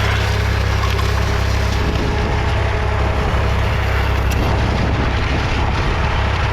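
David Brown 880 Selectamatic's 2.7-litre three-cylinder diesel engine running steadily under load, pulling a mounted two-furrow plough.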